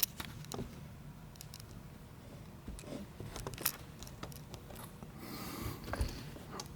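Small metal lock parts and tools being handled: scattered light clicks and taps, with a short rasping rub about five seconds in.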